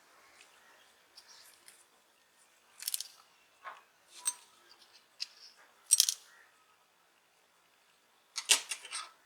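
Small hard clicks and clinks of a smartphone's internal parts and tools being handled while the main board is worked free, spread out at a few irregular moments, with a louder short clatter near the end.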